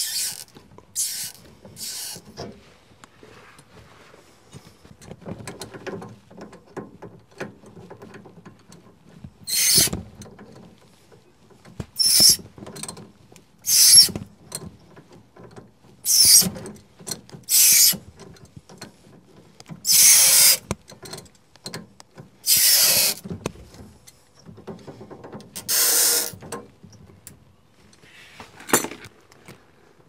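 Hand tools working on plumbing fittings: about a dozen short, hissy mechanical bursts at uneven intervals, with quieter handling clatter between them.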